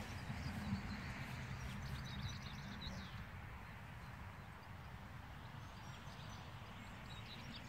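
Faint outdoor ambience: small birds chirping in quick runs in the first half and again near the end, over a steady low rumble.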